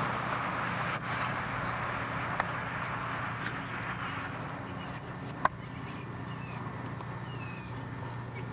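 Outdoor background: a steady rush that fades out over the first half, faint short high chirps, and a single sharp click about five seconds in.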